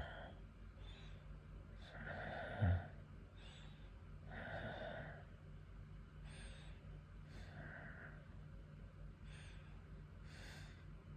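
A drowsy man's slow breathing close to the microphone, a breath every second or two, with one short, louder voiced grunt about two and a half seconds in. A faint steady hum runs underneath.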